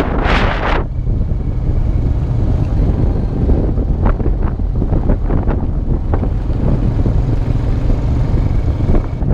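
2002 Honda Rancher 350 ATV's single-cylinder engine running steadily while riding, with wind buffeting the microphone in a gust at the start and a few short knocks and rattles.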